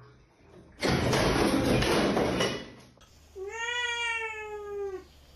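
A loud rushing noise for about two seconds, then a cat gives one long meow that drops slightly in pitch at the end.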